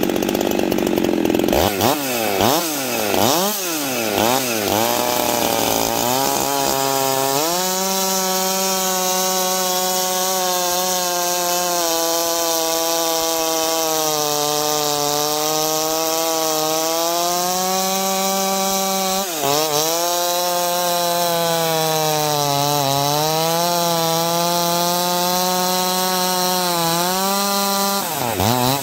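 Husqvarna 390 XP two-stroke chainsaw cutting through a large log: the engine revs up and down as the cut starts, then holds a steady high pitch under load in the wood. The pitch dips briefly about two-thirds through and recovers.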